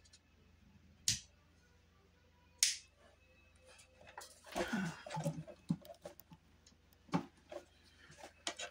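Scattered sharp clicks and light knocks from a hand-held rotary engraving tool being handled with its motor off, and a busier patch of small taps and rustles about halfway through.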